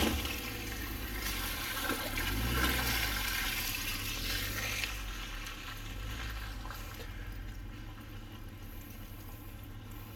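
An SUV driving through a muddy water-filled puddle: water sloshing and splashing against the body over the low sound of its engine. The splashing is strongest in the first few seconds and then dies down.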